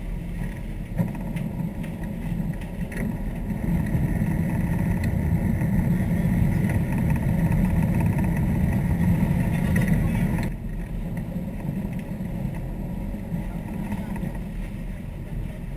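Sport-fishing boat's engines running with water rushing around the hull, a steady low rumble. It grows louder about four seconds in and drops off suddenly about ten and a half seconds in.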